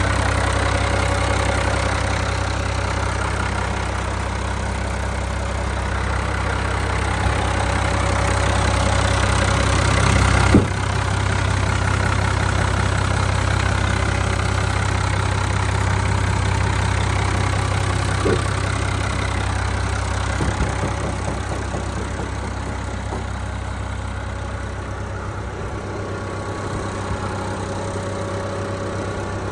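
Ford 7840 SLE tractor's turbocharged six-cylinder diesel idling steadily, with one sharp click about a third of the way through.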